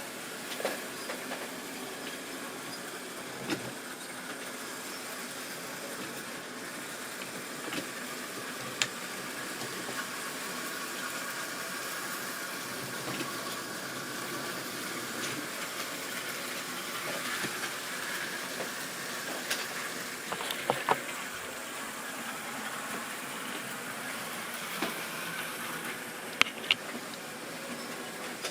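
Model train running on its track: a steady whirr from the locomotive's motor and wheels, with scattered clicks as the wheels pass over rail joints.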